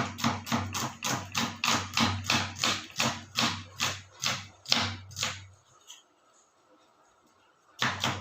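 Knife chopping onions on a cutting board: a steady run of about three or four chops a second that stops about five and a half seconds in, then starts again near the end.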